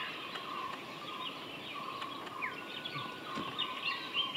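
Forest birds chirping and whistling, several short calls overlapping. About halfway through, one bird gives a long whistle that slides down and then holds a steady pitch.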